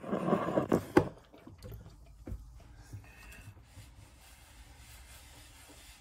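A person eating with a fork: two sharp clicks about a second apart, with a short scraping noise between them in the first second, then faint soft sounds.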